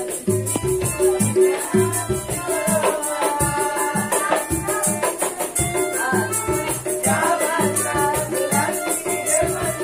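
Street busker's music: a melody over a steady drummed beat, with a shaker-like rattle keeping time.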